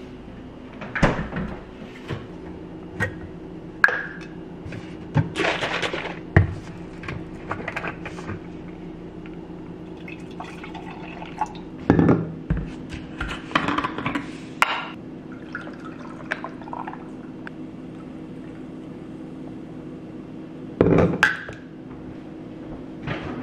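Ice cubes clinking into a glass jar and liquid pouring over them as iced coffee is made, amid scattered knocks and clinks of glassware and kitchen things, over a faint steady hum.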